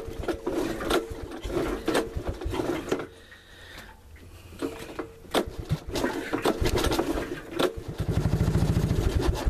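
1985 Honda ATC 200S single-cylinder engine running unevenly after a cold start. It fades about three seconds in, picks up again, and fires in a quick, even beat near the end. It is beginning to flood and running rich, unable to rise above an idle, which the owner takes for water in the carburettor.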